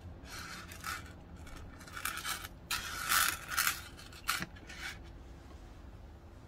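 A leather pocket watch pouch and its metal chain being handled: irregular rustling and scraping of leather and chain links, loudest about three seconds in, with a sharp click a little after four seconds as the chain's clasp is hooked on.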